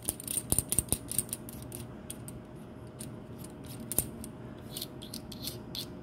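Retaining ring being screwed by fingertip into a microscope eyepiece to hold the reticle disc: a run of small quick clicks and light scraping from the threads, thickest in the first second, with a sharper click about four seconds in.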